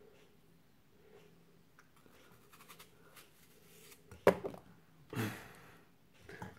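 Small knife cutting a peeled apple with faint crisp cuts, then about four seconds in a sharp knock as a cut piece of apple drops into the blender cup, with a few smaller clicks after it.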